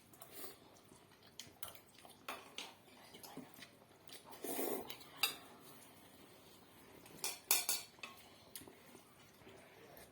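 Eating utensils clicking and scraping against a bowl of ramen in irregular taps, with a short noisy rustle about halfway and a cluster of louder clicks near the end.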